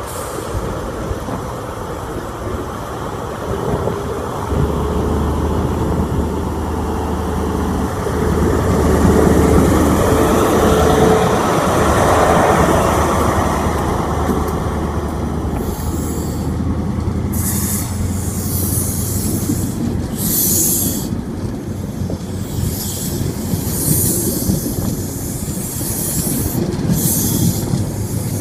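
A Class 43 HST power car's MTU 16-cylinder diesel engine pulls away under power with a steady low note. It grows louder as the power car passes close by, loudest about ten seconds in. Then the coaches roll past with wheel-on-rail rumble and repeated short high hisses and squeals from the wheels.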